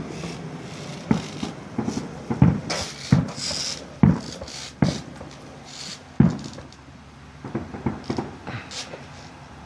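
Fireworks going off: a series of sharp booms at irregular intervals, then a quicker run of smaller crackling pops near the end.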